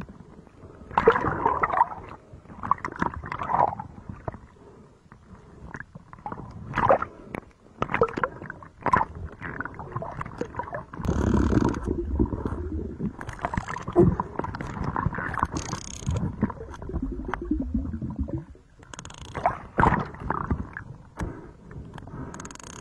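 Sea water splashing and gurgling in irregular bursts and swells.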